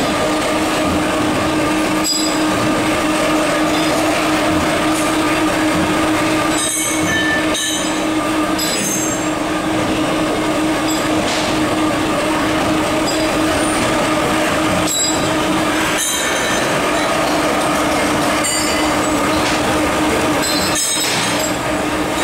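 Workshop machinery running with a steady pitched drone, broken by irregular sharp metallic clanks of steel parts being handled and drilled.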